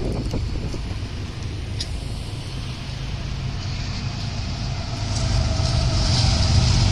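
Diesel freight locomotives approaching: a steady low engine rumble that grows louder about five seconds in, mixed with street traffic.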